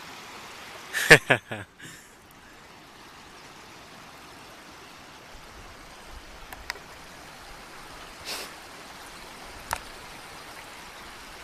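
Steady rushing of running water, as from a mountain stream among boulders and snow. A short loud burst about a second in, then a few faint clicks.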